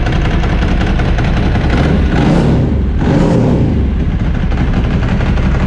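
Ducati 749's 90-degree V-twin engine running steadily just after starting, with a brief swell in noise about two seconds in.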